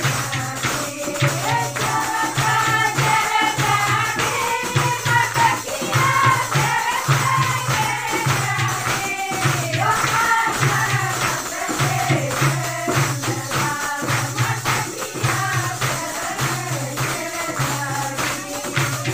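Women singing a folk song together over rhythmic hand clapping, a jingling tambourine-like percussion and a steady, evenly repeating low drum beat.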